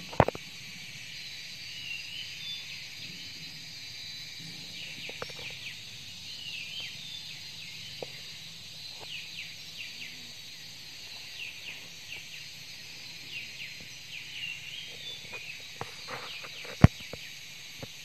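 Wild birds chirping in short, repeated high notes over a steady, high insect drone. Two sharp clicks stand out, one just as it begins and a louder one near the end.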